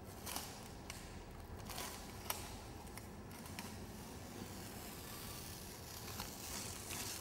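Faint scratchy swishes of a paintbrush drawn across a wall, with a few small clicks between them, over a low steady room hum.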